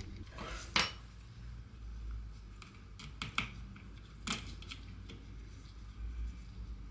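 A few light clicks and taps of small metal parts being handled while a bolt and spacer are fitted to a hedge trimmer's gear housing.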